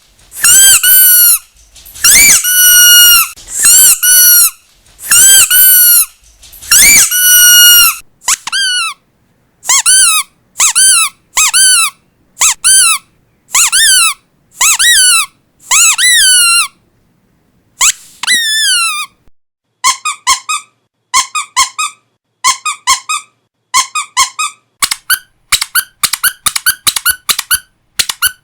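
Rubber squeaky dog toys squeezed over and over, several different toys in turn. First come long, steady squeaks about one a second. Next come shorter squeaks that bend in pitch. Near the end, quick short squeaks come several a second.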